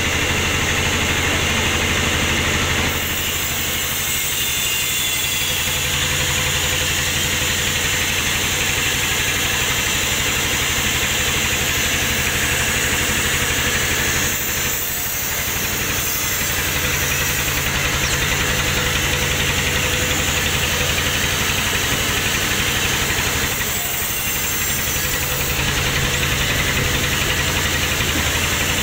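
Large band saw running steadily as it rips a poplar log lengthwise: a constant machine hum with the hiss of the blade cutting through the wood. The level dips slightly about 15 seconds in.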